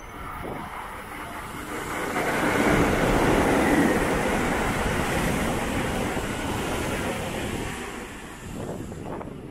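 A train passing by, its rumble swelling to a peak about three to four seconds in and then fading away.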